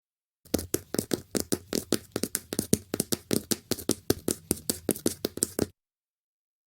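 Small, quick cartoon footsteps: a fast patter of light steps, about five a second, that stops abruptly near six seconds.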